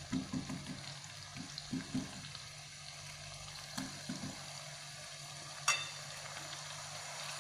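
Blended chili paste frying in oil with a gentle, steady sizzle. Soft knocks come in the first couple of seconds and again a little before the middle, as a small glass bowl is tapped against the spatula to empty out the seasoning, and there is one sharp clink near the end.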